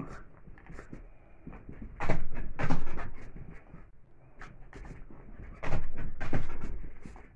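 Small dog playing with a plastic jar: quiet scuffling broken by two loud clusters of knocks, about two seconds in and again about five and a half seconds in.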